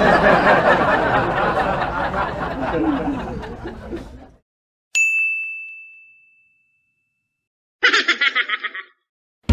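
A string of stock editing sound effects: a dense, noisy sound lasting about four seconds that fades out, then a single bright bell ding that rings away over about two seconds, then a short, quick chuckle-like burst of rapid pulses.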